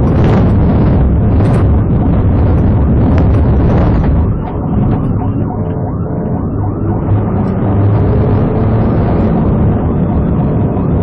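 Police car driving fast over a rough dirt and gravel road: heavy engine and tyre rumble with bumps and gravel clattering against the car. It is loudest over the first four seconds and eases a little after that.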